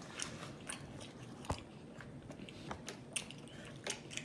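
A person chewing a mouthful of food close to the microphone: wet mouth clicks and small crunches at irregular intervals, with one sharper click about a second and a half in.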